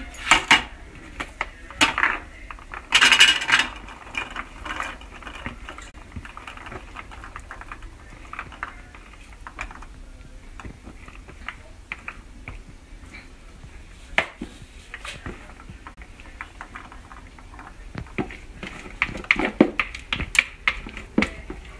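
Metal spoon stirring and scraping a pea salad around a plastic mixing bowl, then scraping it out into a serving bowl. Scattered clicks and knocks of the utensil against the bowls, loudest in the first few seconds, with another cluster near the end.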